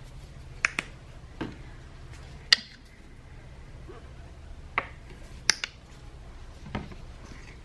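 Scattered sharp clicks and taps as washable paint bottles are opened and handled, about eight separate clicks over a low steady hum.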